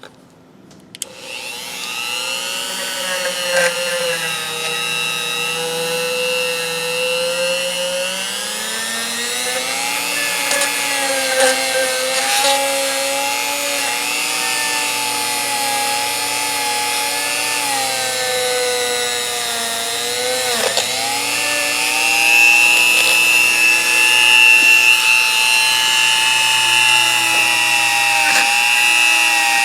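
Dremel rotary tool switching on about a second in and running with a high whine, its pitch sagging and recovering as it loads against the steel of a pair of pliers, with a brief deep dip about two-thirds of the way through.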